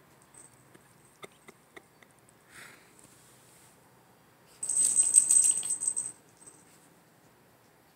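Small metal pieces jingling in a quick, fast rattle with a high ringing tone, lasting about a second and a half. A few light taps come before it.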